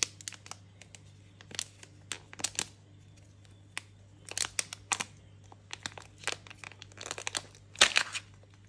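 The printed wrapper of a Kinder Joy egg being torn and peeled off, in irregular crinkling crackles with a loud crackle near the end.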